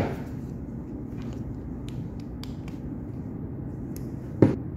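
Wire-stripping pliers being handled on a length of 14 AWG wire: a sharp click at the start, a few faint ticks, then a sharp snap about four and a half seconds in as the jaws close on the wire to strip its insulation, over a steady low background hum.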